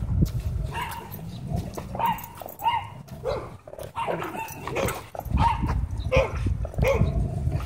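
Dog barking in short, high yips, about a dozen scattered through the few seconds, over a low rumbling background.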